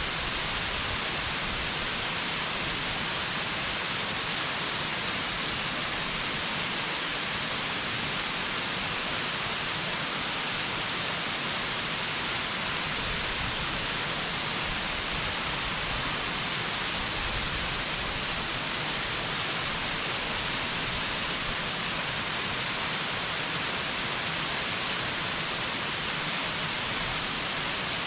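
Waterfall: a steady, even rush of falling water that does not change in level.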